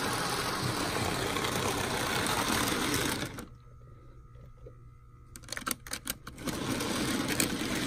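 Hornby OO-scale model locomotive running on track under its electric motor with a steady whirring. It stops about three and a half seconds in, a few clicks follow, and it starts running again near the end: the train stalling on the layout.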